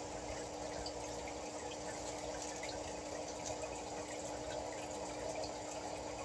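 A steady low hum with an even watery hiss, like a small pump or filter running, with faint light clicks and rustles of plastic plants and decorations being pressed into damp coconut-fibre substrate in a plastic tote.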